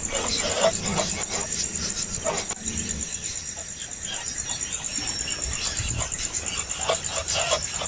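Insect trilling steadily, a high, finely pulsed note like a cricket. Short squeaky chirps come and go around it, most of them in the first two seconds and again near the end.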